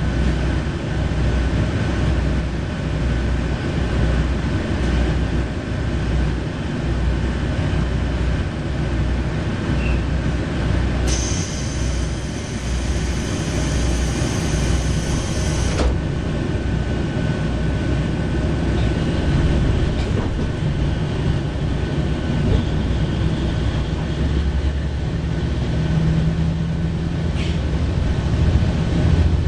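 Interior running sound of a JR Shikoku KiHa 40-series diesel railcar: the underfloor diesel engine pulling away just after the doors close, with rail and wheel rumble. A high hiss starts about 11 seconds in and lasts about five seconds, and the engine note rises near the end.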